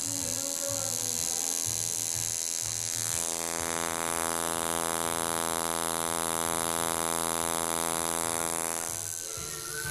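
Coil tattoo machine buzzing as it works ink into the skin of a hand. The buzz is broken and stop-start for the first few seconds, then runs steadily and evenly until it stops near the end.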